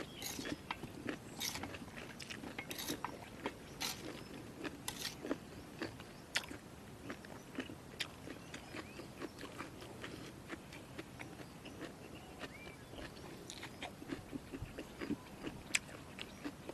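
A person chewing a mouthful of spicy jellyfish salad close to the microphone, with irregular crisp crunching and wet mouth clicks.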